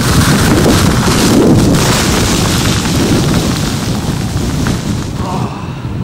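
Gale-force wind gusts of about 80 to 90 km/h buffeting the microphone with a heavy rumble, and a rushing hiss of wind-blown sand that is strongest for the first two seconds, then eases.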